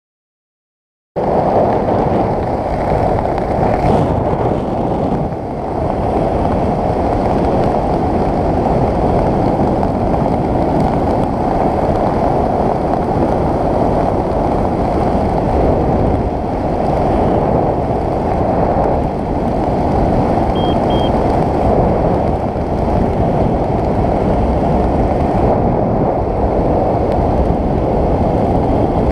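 Wind noise buffeting the camera microphone during a parachute descent under canopy: a loud, steady rush that starts about a second in.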